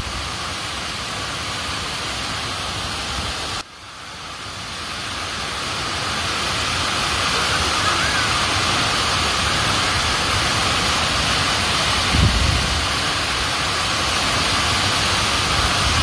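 Tall mountain waterfall (Tác Tình Falls) pouring in a steady rush of falling water. It breaks off sharply about three and a half seconds in and fades back up over the next two seconds. A low rumble on the microphone comes about twelve seconds in and again at the very end.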